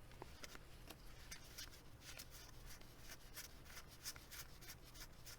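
Faint, quick flicks and slides of baseball cards being flipped off a stack by gloved hands, several light card-on-card ticks a second at an uneven pace.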